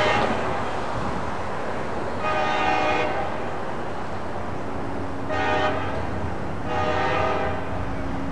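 Train horn sounding the grade-crossing signal from an approaching train: the end of one long blast, then a long blast, a short one and a final long one, over the train's steady low rumble.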